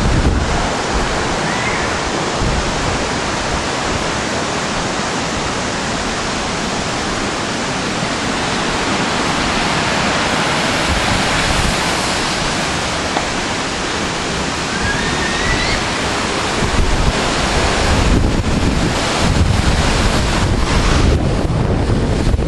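Steady rushing roar of a large waterfall. Wind buffets the microphone in gusts over the last few seconds.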